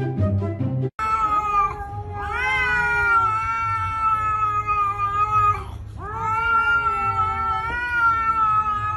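A cat yowling: a short call, then two long drawn-out yowls of about three and a half seconds each, each rising at the start and then holding steady. Flute music plays until it cuts off about a second in.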